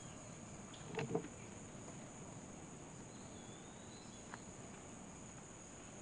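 A steady, high-pitched chorus of insects droning without a break. Two quick knocks come close together about a second in, and a small click later.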